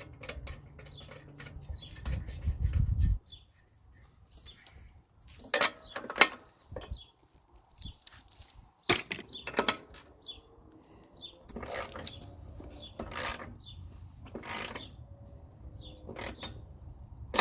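Metal clicks, knocks and scrapes of tools and a new spark plug being handled and fitted to a Honda lawn mower engine, coming singly and irregularly. A low rumble runs for about the first three seconds.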